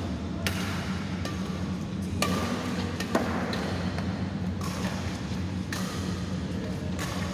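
Badminton rackets striking a shuttlecock in a fast rally: about seven sharp cracks, roughly one a second, over a steady low hum.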